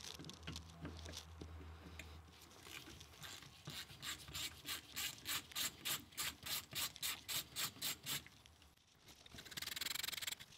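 T15 Torx driver backing screws out of a cast-aluminium FICM back plate: an even run of sharp clicks, about three or four a second, that stops after several seconds. It is followed by about a second of scraping rub near the end.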